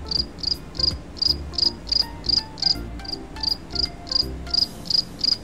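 Cricket chirping: short, high chirps repeating evenly about three times a second.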